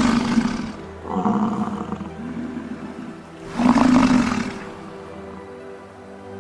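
American bison roaring: three deep, drawn-out roars, each about a second long, the first already sounding at the start, the next about a second in, the last about three and a half seconds in.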